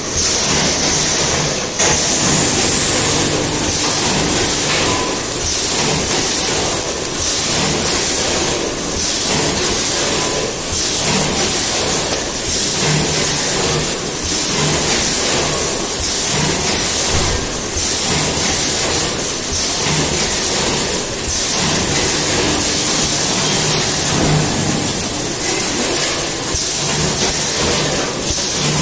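Automatic multihead weigher and vertical packing machine running: a steady machine din with a high whine, broken by hissing pulses that come round every second or two.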